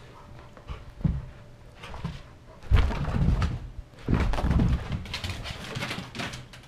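Two dogs play-fighting: several short bursts of growling and scuffling, the loudest about three and four seconds in.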